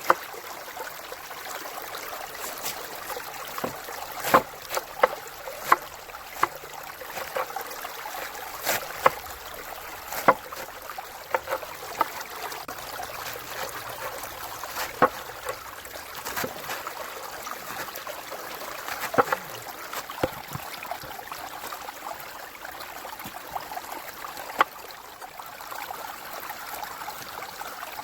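A river flowing steadily, with scattered sharp clicks and knocks at irregular intervals.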